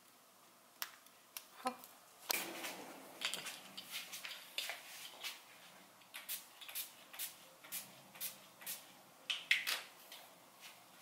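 A series of light clicks and knocks, a few scattered at first, then coming steadily at about two a second.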